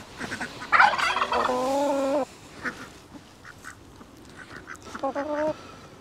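Poultry calling: a loud, drawn-out call about a second in that lasts around a second and a half, a shorter call near the end, and short faint calls in between.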